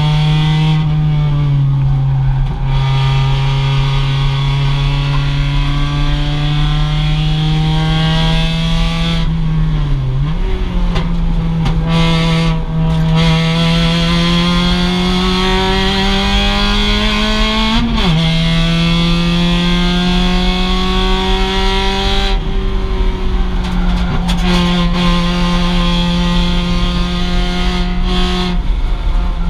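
2006 Mazda MX-5's stock four-cylinder engine under racing load, heard from onboard. Its pitch climbs slowly as it pulls through each gear, then drops abruptly at the gear changes, several times.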